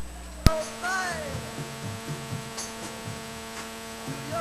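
A sharp click as a capacitor's leads are pressed onto the amplifier's circuit board, followed by the amplifier's speaker humming steadily with the fault noise known as motor noise. A faint gliding tone rises and falls about a second in.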